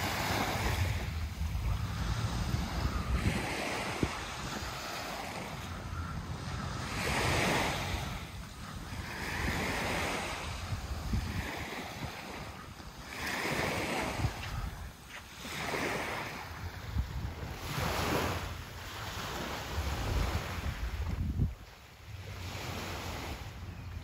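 Small waves washing in and out on a sandy shore, the wash swelling and fading every couple of seconds, with wind buffeting the microphone as a low rumble.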